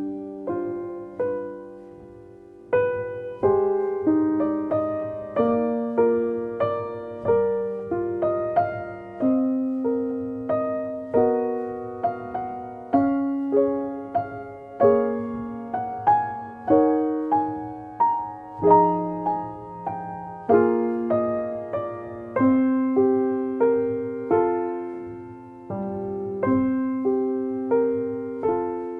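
Slow solo piano music, each note or chord struck and left to die away.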